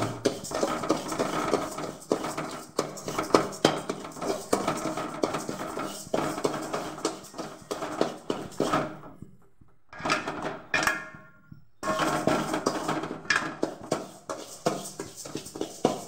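A metal ladle scrapes and stirs hulled split moong dal around a metal kadai, the dry lentils rattling against the pan in repeated strokes as they are dry-roasted golden. The stirring pauses briefly about nine seconds in and again around eleven seconds.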